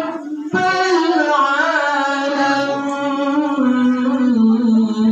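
Melodious Qur'anic recitation (tilawah) by a single voice. After a short breath just after the start, the reciter draws out the word 'rabb' of 'illa rabbal 'alamin' in one long, ornamented melodic line.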